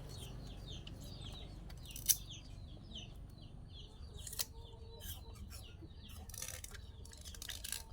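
A bird chirping over and over, short falling chirps about three a second, with two sharp clicks about two and four and a half seconds in.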